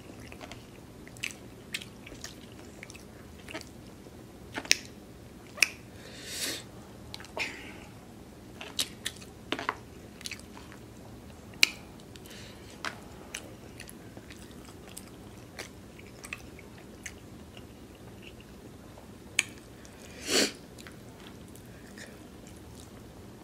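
Close-miked eating: wet chewing with scattered sharp mouth clicks and smacks, and a few longer hissing sounds about six and twenty seconds in.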